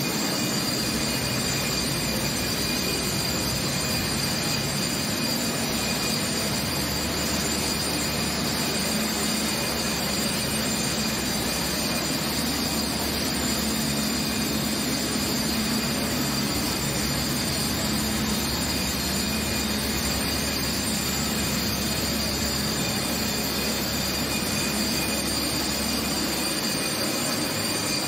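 Walk-behind concrete floor grinder and its dust-extraction vacuum running steadily, grinding an old peeling epoxy coating off a garage slab: a steady high whine over grinding noise. A deeper hum comes in about six seconds in and drops out near the end.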